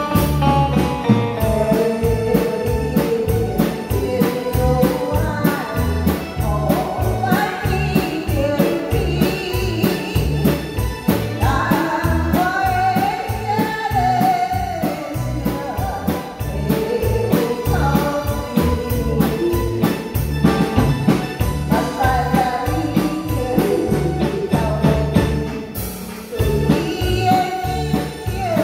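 A woman singing a pop ballad through a microphone and PA, backed by a live band of drums, electric guitar, bass guitar and keyboard, with the drums keeping a steady beat.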